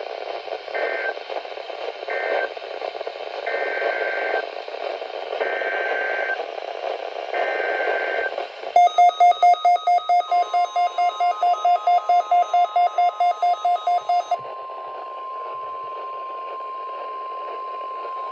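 NOAA Weather Radio over hiss: three short SAME data bursts closing the previous alert, then three longer SAME header bursts opening a new warning. These are followed by rapid electronic beeping, about five beeps a second, and the steady 1050 Hz weather-radio warning tone.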